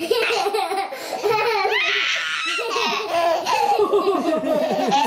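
A baby laughing over and over in short, high pulses, with a higher squeal about two seconds in.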